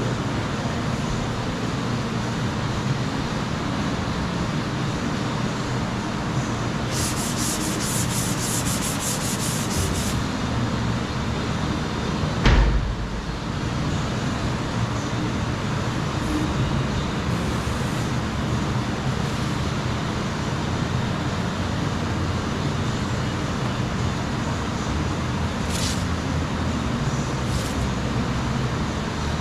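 Steady sanding of Bondo body filler on a car's quarter panel. It includes a few seconds of faster, higher scratching strokes about a quarter of the way in, and a single loud thump a little before halfway.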